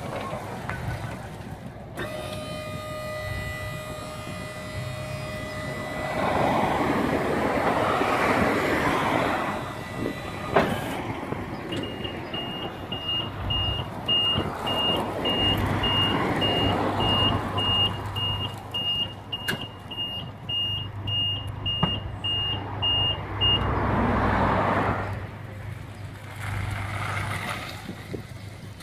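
Cityfort electric utility vehicle working: a steady whine for a few seconds, then its warning beeper sounding short high beeps about twice a second for around twelve seconds while the tipper bed is raised, with bursts of rushing noise coming and going.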